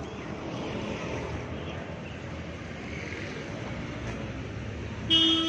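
Street traffic noise, a steady hum of passing vehicles. Near the end a vehicle horn sounds once, a single held toot.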